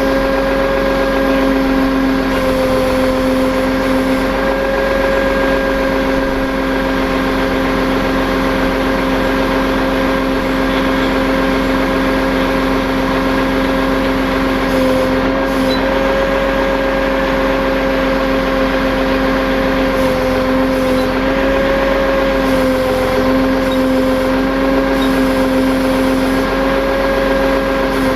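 Tow truck running steadily while it works its winch, with a strong steady mid-pitched whine that wavers slightly in pitch over a low engine hum.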